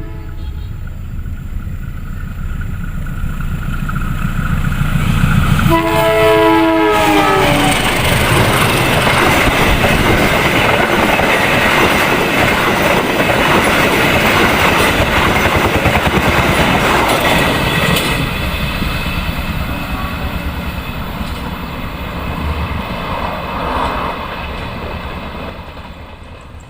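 Locomotive-hauled train approaching and passing close by. A horn blast ends just as the sound begins, the engine rumble builds, and a second horn blast of about a second and a half comes about six seconds in. Then the wheels clatter over the rails loudly for about ten seconds and fade away.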